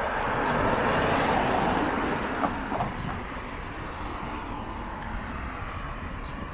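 A van passes on the road close by, its tyre and engine noise swelling within the first second and fading over the next two, leaving steady traffic noise.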